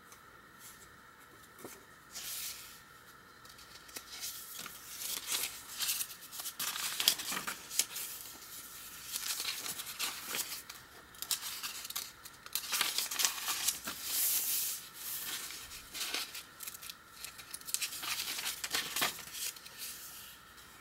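Paper pages of a handmade journal rustling and crinkling as they are handled and turned, in irregular bursts starting about two seconds in.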